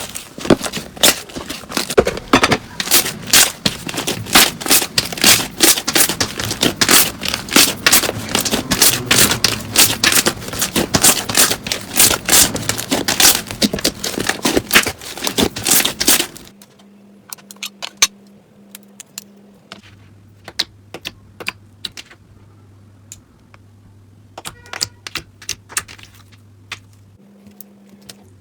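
Slime being squeezed and pressed by hands, making dense, rapid crackling and popping clicks. About sixteen seconds in, this gives way to a few sparse, quieter clicks over a faint low hum.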